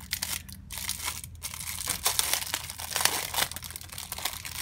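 Clear plastic wrap crinkling in quick, irregular crackles as hands pull it off an acrylic tray, with two brief pauses in the first second and a half.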